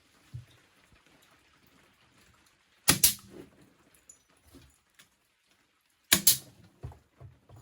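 Nail gun firing twice, about three seconds apart, each shot a sharp double crack, with a few softer knocks after the second.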